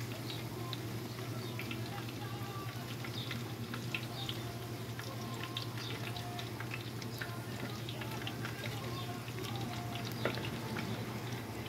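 Corn tortillas deep-frying in hot oil in a wide steel pan: steady sizzling full of small crackles, over a low hum. A sharp metal clink about ten seconds in, as the slotted spatula touches the pan.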